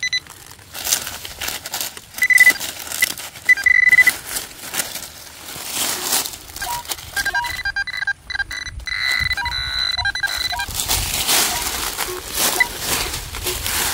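Metal detector beeping over a buried metal target: short high beeps about two and four seconds in, then a longer wavering tone a little past the middle. Dry leaves and soil crunch and scrape as the spot is dug and cleared.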